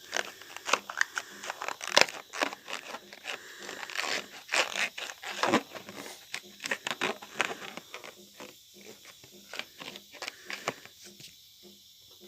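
Wrapping paper crinkling and tearing in a dense run of irregular crackles. It is busiest in the first half and thins to scattered crackles after about eight seconds.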